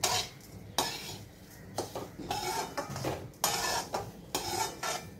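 Metal slotted spatula scraping and knocking against a metal kadai as semolina and sugar are stirred and roasted, in repeated strokes roughly one a second.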